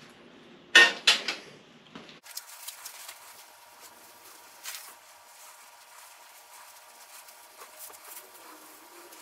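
A few sharp clanks of metal parts being handled on the bench about a second in, then the faint rubbing of a rag wiping down a mower spindle shaft held in a vise, over a faint steady hum.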